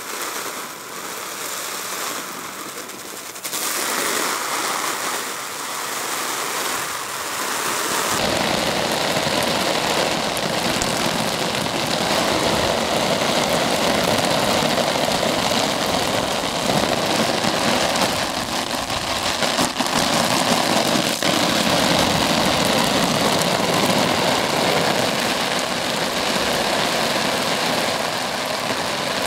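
Water from a garden hose spraying onto a Quechua MH100 Fresh & Black tent's flysheet, making artificial rain that hisses and patters steadily on the fabric. The spray gets louder and fuller about eight seconds in.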